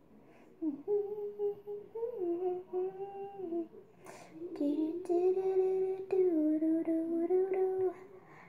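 A girl humming a slow, wordless tune in two long phrases of held notes, with a short break about halfway.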